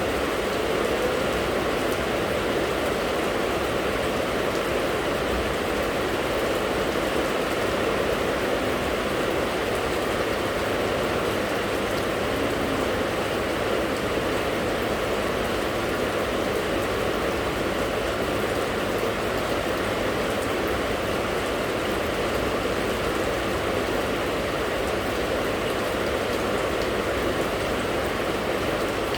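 Steady, continuous rain falling, an even hiss of many drops with no change in strength.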